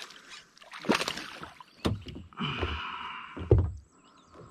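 A bass being pulled from the water and landed in a kayak: splashing, then three sharp knocks against the boat, the loudest about three and a half seconds in.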